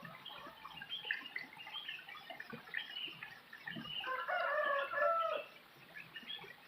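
Domestic chickens clucking among many small bird chirps, with one louder, drawn-out fowl call lasting about a second and a half, starting about four seconds in.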